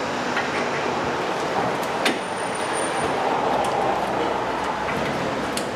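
Steady workshop background noise, with one sharp metallic click about two seconds in and a few fainter clicks as a rear brake caliper bracket and its bolts are worked into place.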